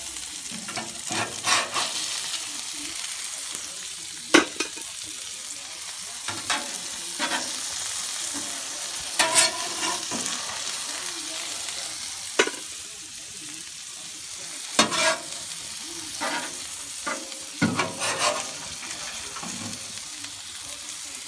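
Food sizzling on a flat-top griddle while a perforated stainless-steel spatula scrapes and clacks against the cooktop, scooping up fried potato rounds. The sizzle is a steady hiss, broken by repeated sharp metal scrapes.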